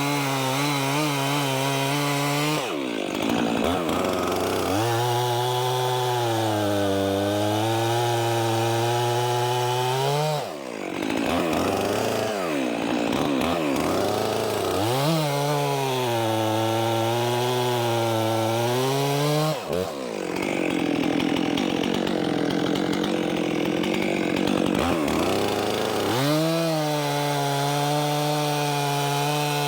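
Stihl MS 400 C two-stroke chainsaw running at full throttle, cutting through firewood logs one after another. The engine pitch sags as the chain bites into each cut and climbs back between cuts, with short dips in revs several times.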